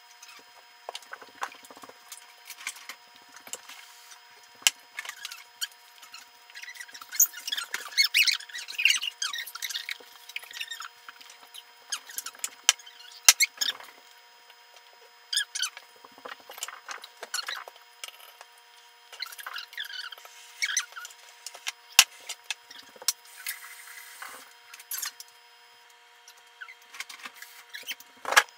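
Eating sounds, chewing and wet mouth noises, altered in playback into high squeaky chirps and clicks that come in irregular clusters.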